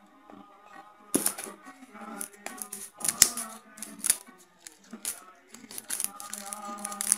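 Clear plastic shrink wrap crinkling and crackling as it is peeled and torn off a smartphone box, in quick sharp crackles starting about a second in. Background music with held notes plays underneath.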